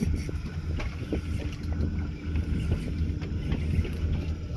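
Boat engine idling, a steady low hum, with wind on the microphone and scattered light knocks.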